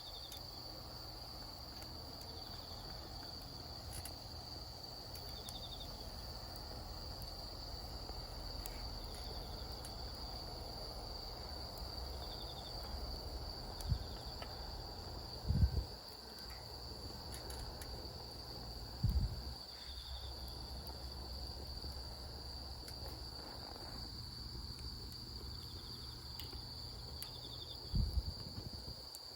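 Insects trilling in one continuous high note, with shorter chirps from another insect repeating every few seconds just below it, over a low rumble. A few brief low thumps come near the middle and again near the end.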